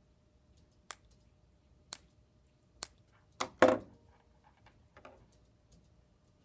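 Handheld wire cutters clicking shut about once a second while nicking apart the two conductors of 22-gauge speaker wire. About three and a half seconds in there is a louder clatter as the metal tool is set down on the table, then a faint click near the end.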